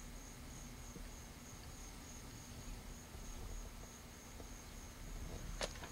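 Faint insect chirring outdoors: a high, steady, slightly pulsing call over the camcorder's low hum and hiss, with a single sharp click near the end.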